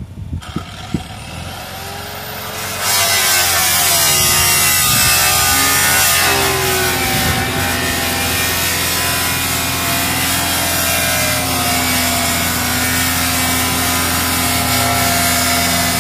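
A hand power tool spins up with a rising whine, then from about three seconds in cuts loudly and steadily through the roof panel of a Land Rover Discovery.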